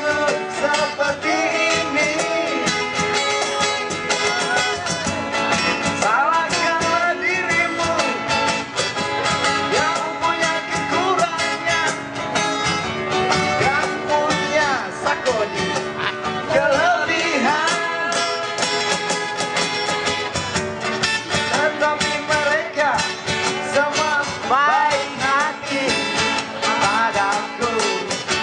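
Live acoustic guitars playing a song, with a voice singing over them.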